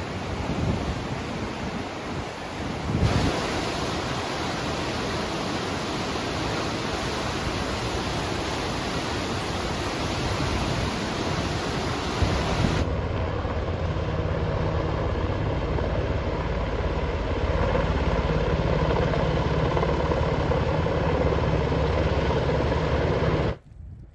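A steady roar of wind and rushing water from a storm, changing abruptly about 3 s and again about 13 s in, with a low steady hum under the noise in the later part; it cuts off sharply near the end.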